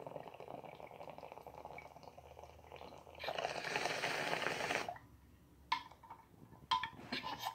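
Water bubbling steadily in a glass bong as smoke is drawn through it. About three seconds in, a louder rushing hiss lasts under two seconds as the bowl is pulled and the chamber is cleared. Two sharp glass clinks follow near the end.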